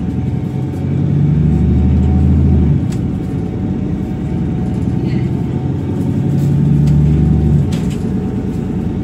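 Cummins ISB6.7 diesel engine of a VDL DB300 double-decker bus pulling under load, heard from inside the bus. The engine note builds twice and drops suddenly each time, about three seconds in and near the end, as the Voith automatic gearbox changes up.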